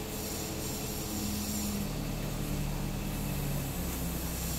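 An engine running steadily with a low hum. Its note shifts about two seconds in and again near the end.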